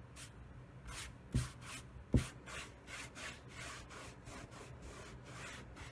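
A cloth rag rubbing gray stain into a rough pallet board in quick back-and-forth strokes, a dry swish with each stroke. Two dull knocks stand out about a second and a half and two seconds in.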